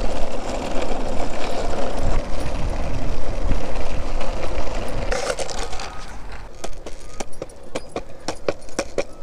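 Longboard wheels rolling fast on asphalt with a steady rumble. After about five seconds the rumble gives way to a regular clack-clack, about three a second, as the wheels cross the joints of a concrete path.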